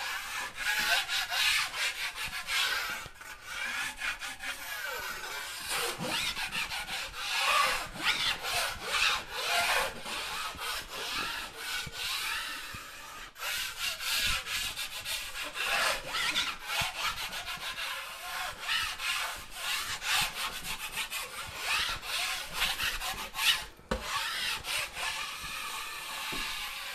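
A 6-inch steel drywall knife scraping over hardened Durabond setting compound on taped drywall seams, in a long run of uneven strokes. It is knocking the ridges and tool marks off the bed coat so the first coat goes on smooth.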